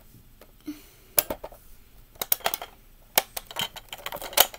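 Plastic toy being worked by hand: scattered sharp clicks and clacks, several in quick runs.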